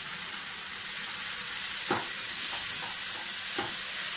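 Tomato puree sizzling in hot oil over fried onions in a frying pan, stirred with a spatula: a steady high hiss, with two scrapes of the spatula against the pan about two seconds in and again near the end.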